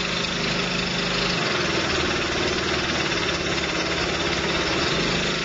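V-Tex texture sprayer's engine running steadily, driving the hose pump on a test run to check for suction at the inlet after a new fluid tube has been fitted.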